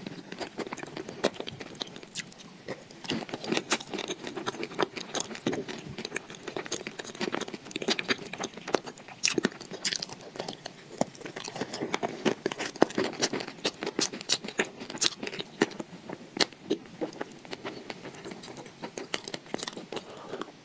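Close-miked mouth sounds of a person biting and chewing a thick paste, with many small wet clicks and crunchy crackles.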